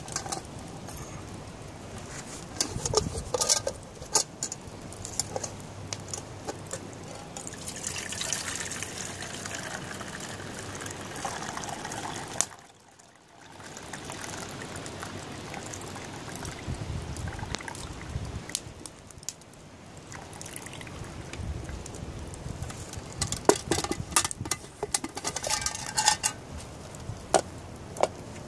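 Hot water from boiled acorns poured out of a metal camping pot into another metal pot, draining them as one step in leaching the acorns. Sharp clinks and clicks of metal pots and lids come about three seconds in and again near the end.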